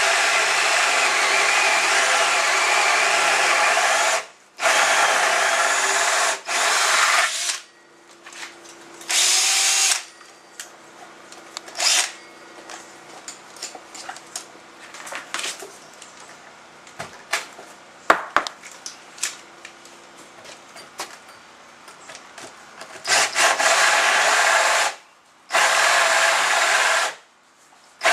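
Power drill driving a hole saw into a wooden door, boring the lockset hole partway through from one side. It runs in several bursts, stopping and restarting, with a quieter stretch of small knocks and handling in the middle before two more short runs near the end.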